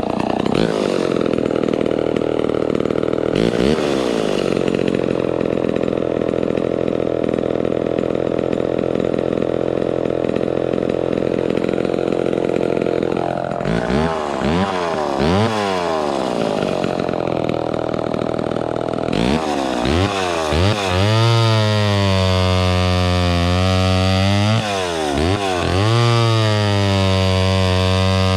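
Vintage Homelite XL12 two-stroke chainsaw held at full throttle for about thirteen seconds while its high-speed carburettor mixture is set slightly leaner. It then drops back to idle, with several quick throttle blips.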